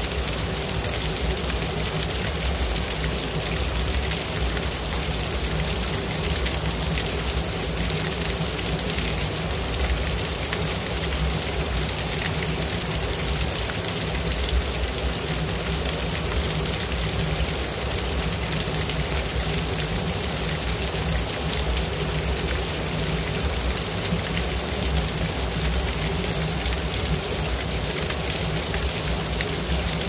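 Small waterfall spilling down a rock face and splashing onto the stone below: a steady, even rush of falling water.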